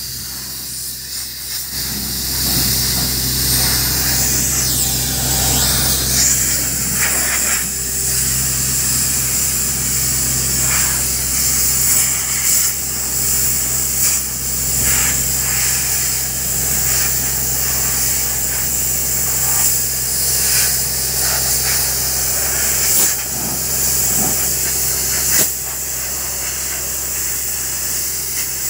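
Tata Hitachi drill rig running with a steady engine drone while compressed air blows out of it in a loud, steady hiss; the hiss grows stronger a few seconds in.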